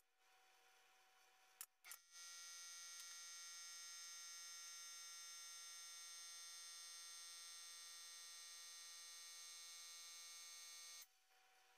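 A pneumatic brad nailer fires with a sharp snap, and two more clicks follow about a second and a half later. Then a steady, high-pitched electric whine runs for about nine seconds and cuts off suddenly.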